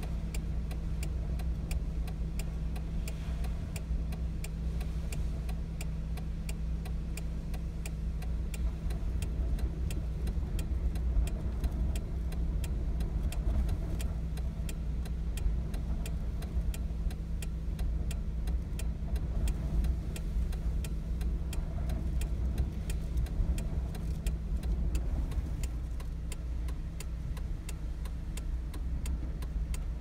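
Car engine running steadily, heard from inside the cabin, with a regular ticking about three times a second.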